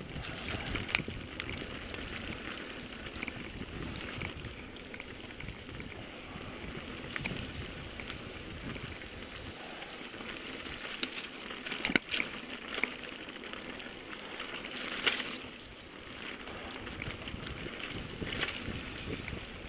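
Mountain bike rolling fast down a rough dirt trail: a steady crackling rush of tyres on dirt, broken by sharp rattles and knocks from the bike over bumps, the loudest about a second in and others around twelve and fifteen seconds in.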